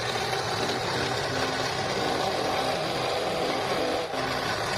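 Benchtop drill press running steadily, its twist bit drilling a hole through steel angle bar.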